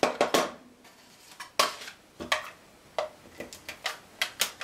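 Sharp clicks and hard plastic knocks from a handheld Fast Fuse adhesive applicator being used on card stock and set down on a tabletop, about a dozen irregular clacks in all.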